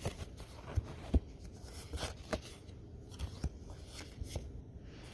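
Pokémon trading cards being handled and slid one by one from the front of a stack to the back, giving soft, irregular clicks and ticks as the card edges knock together; the loudest click comes about a second in.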